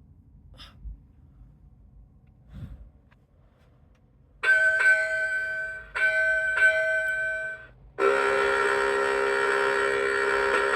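Gemmy Rocky the Singing Lobster toy's small speaker starting its song: after a few faint clicks, two held horn-like blasts ring out about four and a half and six seconds in. The band music comes in about eight seconds in.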